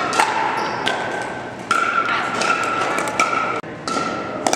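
Pickleball paddles striking a plastic ball during a rally: a series of sharp pops, spaced roughly half a second to a second and a half apart.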